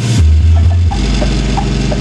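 Background music: held bass notes that change pitch with a light, regular percussive tick over them.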